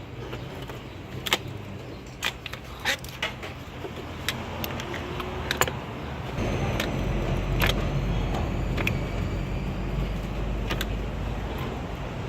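Metal hand tools clinking and clanking against engine parts as the intake is taken apart: sharp, irregular clicks over a steady low rumble that grows louder about six seconds in.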